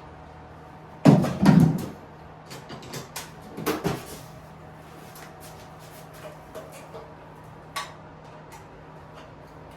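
Metal hand tools clattering and knocking while someone rummages for a screwdriver: a loud clatter about a second in, another near four seconds, then scattered lighter knocks.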